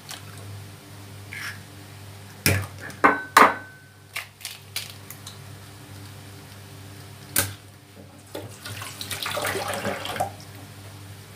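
Eggs cracked against the rim of a ceramic bowl: a few sharp knocks between about two and three and a half seconds in, and another at about seven and a half seconds. Near the end comes a short watery rush lasting under two seconds, over a steady low hum.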